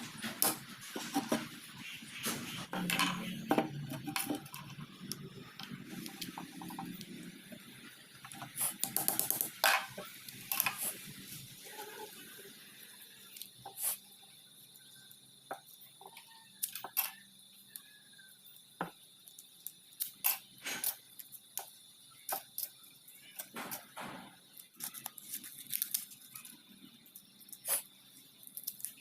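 Scattered clicks, taps and light scrapes of small hard objects being handled, busier in the first few seconds and again around the ninth to eleventh second, then single clicks every second or so.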